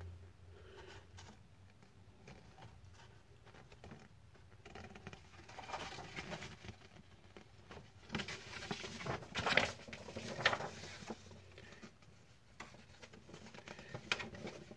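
Paper rustling as a CD's lyric booklet is leafed through and its fold-out insert opened by hand: soft, irregular rustles and flaps, louder in short spells in the middle.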